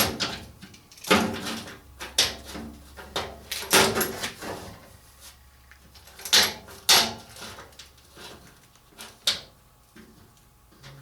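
Door panels and a clamp being handled and clamped on a welding bench: a string of sharp knocks and clunks, the loudest about a second, two, four and six to seven seconds in, then a few lighter ones.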